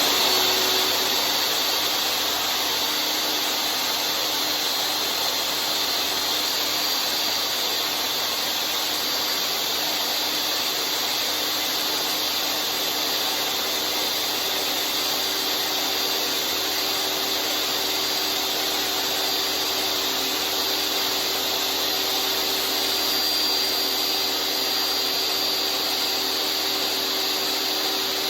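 DeWalt table saw running at full speed with a steady high motor whine, settling from its spin-up within the first second.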